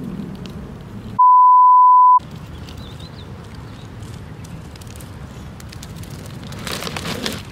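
A steady, single-pitched censor bleep lasting about a second, starting about a second in, with all other sound cut out while it plays. Around it is low, steady background noise, with a brief rush of noise near the end.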